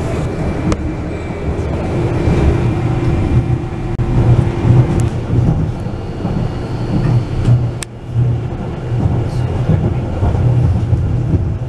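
Wuppertal Schwebebahn suspension railway car in motion, heard from inside: a loud, steady low rumble of the car running along its overhead rail. A sharp click comes about eight seconds in.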